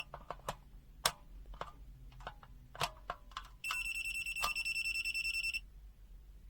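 FUYI FY129C multimeter's buzzer giving a high, rapidly pulsing beep for about two seconds, starting about three and a half seconds in: the alert of its live-line check function. Scattered clicks and taps come before it.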